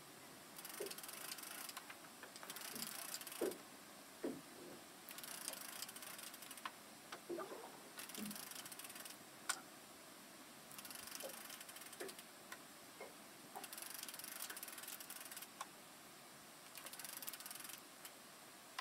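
Fishing reel being cranked in about seven short spells of a second or so each, with pauses between: a fish being pumped up on a bent rod. A few light knocks fall in the pauses.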